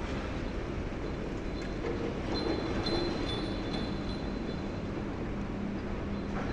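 High-reach demolition excavator working its jaws at the top of a concrete tower, a steady rumble of engine and machinery with a brief high squeal about two to three seconds in.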